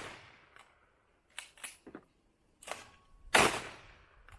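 A shotgun fired once about three and a half seconds in, the report echoing as it dies away, with the fading echo of an earlier shot at the start. A few light sharp clicks and a knock come in between.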